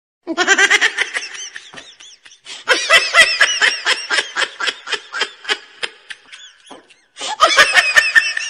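High-pitched laughter in quick repeated pulses, about five a second, coming in three runs broken by short silences that start and stop abruptly.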